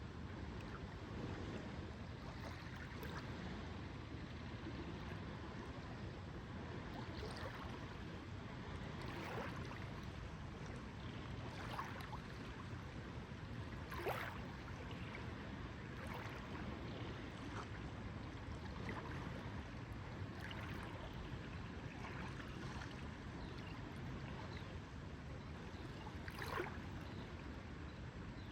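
Lake water lapping, a steady low wash with small splashes and plops every second or two; two sharper splashes stand out, about halfway through and near the end.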